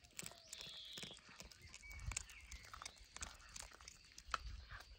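Cat chewing a raw fish close up: an irregular run of small crunches and clicks as it bites.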